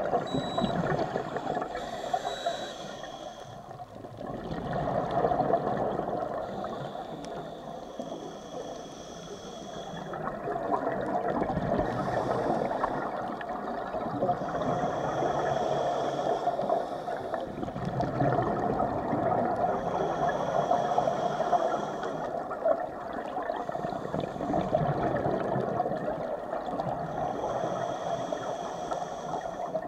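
Scuba regulator breathing heard underwater: a hiss with each inhale, repeating every four seconds or so, and bubbly rumbles of exhaled air, over a steady muffled wash of water noise.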